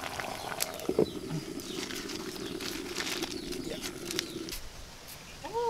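Wood fire crackling in irregular clicks, with a steady low hum for about three seconds and a short bird call near the end.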